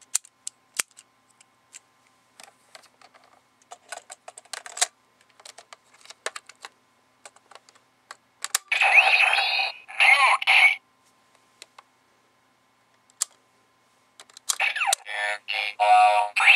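Plastic clicks as a modified Astro Switch is pushed into a Kamen Rider Fourze toy belt and its lever worked. Then the belt's speaker plays loud electronic voice calls and sound effects, twice briefly about nine seconds in and again in a longer run near the end.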